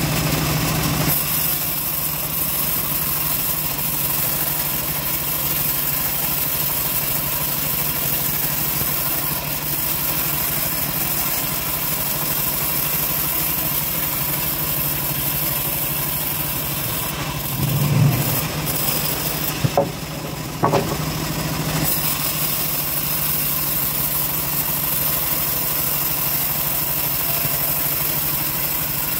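Homemade band sawmill running steadily, its stationary engine driving the band blade as it rips a teak log lengthwise. About two-thirds of the way in there is a brief low swell, followed by two sharp knocks, and then the steady running carries on.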